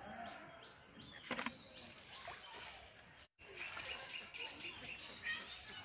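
Faint outdoor ambience with small birds chirping, and a single sharp click about a second and a half in. The sound cuts out completely for an instant a little past halfway.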